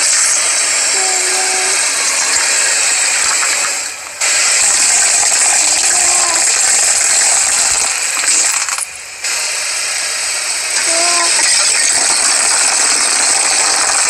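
Dense crackling and crunching as a car tyre rolls slowly over objects on asphalt and crushes them, with a few short squeaks. The sound breaks off briefly twice.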